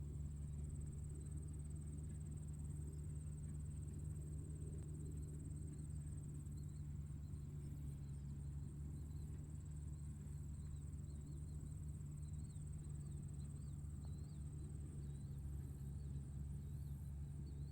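Tractor engine running steadily with a low, even hum, under a continuous high-pitched insect trill. Faint short chirps join in from about six seconds in.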